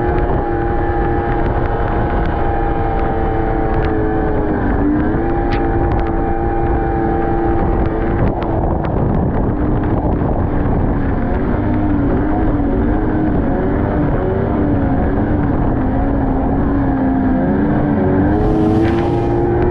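Snowmobile engine running while riding. Its pitch dips briefly about five seconds in, wavers through the middle and climbs again near the end, over a steady low wind rumble.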